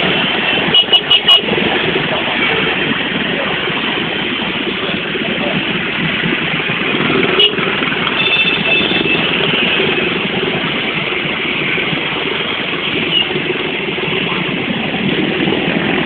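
Dense motor scooter traffic jam: many small engines running and idling together in a steady din. A horn beeps three times in quick succession about a second in, and another horn sounds briefly around the middle.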